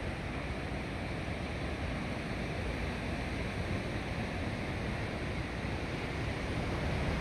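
Steady rushing roar of a fast, churning mountain river.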